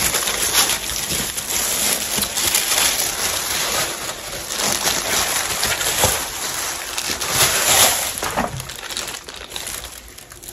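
Plastic wrapping and tissue paper crinkling and rustling as a handbag is pulled out of its packaging, a dense crackle that starts suddenly and fades over the last couple of seconds.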